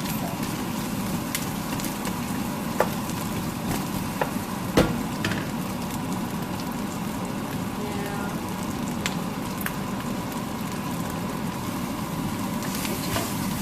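Ground beef and garlic sizzling steadily in a frying pan as they brown, with a few sharp clicks of a utensil against the pan, the loudest about five seconds in.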